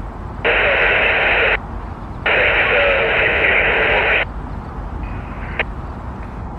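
Radio scanner giving two bursts of static hiss, about one second and then about two seconds long, each switching on and off abruptly.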